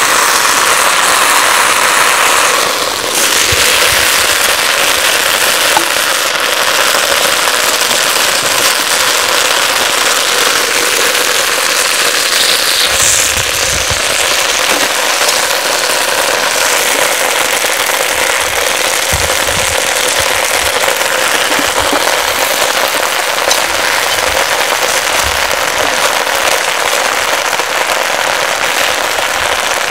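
Whole chicken sizzling loudly in a foil-lined cast-iron Dutch oven over a fire: a dense, steady hiss of spitting fat and juices with faint pops, and a few soft knocks as tongs turn the bird.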